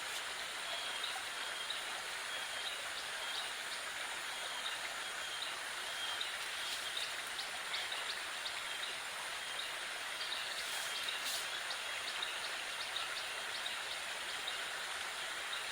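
Small river running steadily over stones, a constant rushing hiss, with a faint repeated high chirping over it.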